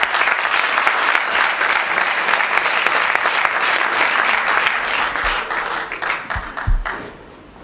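Audience applauding, a dense patter of clapping that dies away about seven seconds in, with a few low thumps as it fades.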